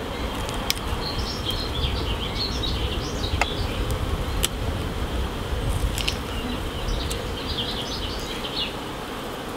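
Honeybees humming steadily over an open hive's brood frames, with a few sharp clicks as the frames are worked with a hive tool.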